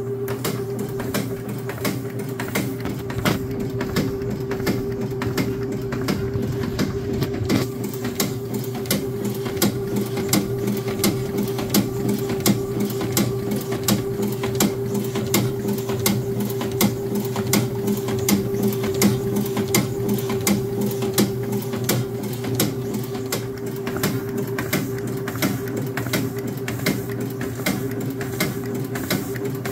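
Standard (Morgana) FRN6 friction feed rotary numbering machine running and feeding paper sheets. It gives a steady motor hum with a fast, even train of clicks.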